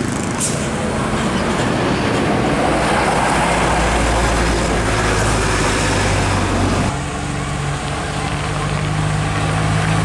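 Tour bus diesel engine running under load as the bus climbs a hairpin bend, its rumble and road noise building to a peak mid-way. About seven seconds in the sound cuts to a steadier, lower engine note of another bus.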